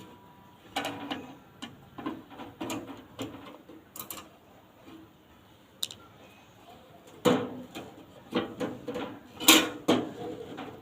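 Irregular clicks and knocks, scattered unevenly, with the two loudest about seven and nine and a half seconds in.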